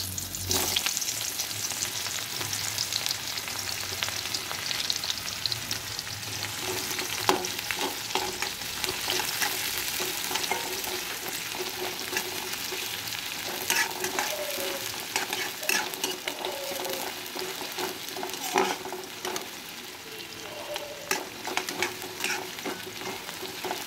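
Sliced onions sizzling in hot oil in a metal kadai, stirred with a spatula that scrapes and clicks against the pan now and then. The sizzle is strongest right at the start, as the onions go into the oil.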